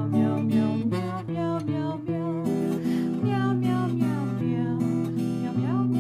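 Background music led by a strummed acoustic guitar, with a steady rhythm of strokes.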